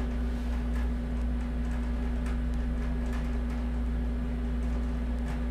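A steady low hum with a constant tone in it, and faint light ticks about twice a second.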